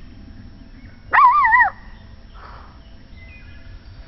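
A puppy gives one high-pitched whining yelp about a second in, its pitch wavering up and down twice, while wrestling in play. Faint bird chirps follow.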